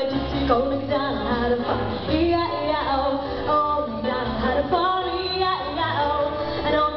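A young female vocalist singing a pop song into a microphone over instrumental backing, with a low bass line pulsing in a steady beat.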